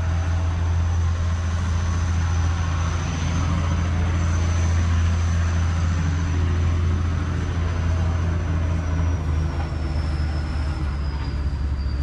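An engine running steadily at idle, a deep constant hum.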